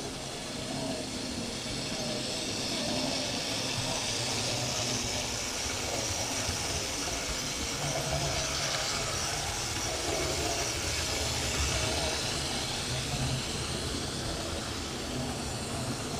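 Several analogue model trains running on the layout's track: small electric motors whirring and wheels rolling on the rails, a steady mechanical running sound.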